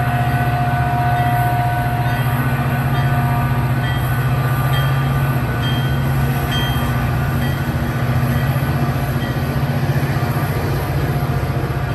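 A diesel train running through the station: a loud, steady low rumble with a fine rapid pulsing. A steady tone over it fades out about two to three seconds in.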